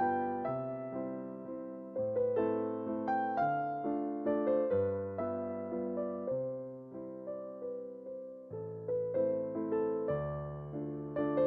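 Background piano music: a gentle melody of struck, fading notes over slow bass notes.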